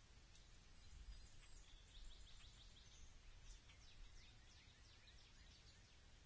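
Faint chirping of small wild birds: many short, high notes that each drop quickly in pitch, coming several a second in loose runs, over a low steady outdoor background noise.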